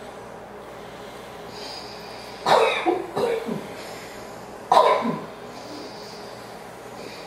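A person breathing forcefully through the nose in alternate-nostril yogic breathing: a soft hissing inhale, then three sharp, loud blasts of air out through the nose, two close together and a third about two seconds after the first.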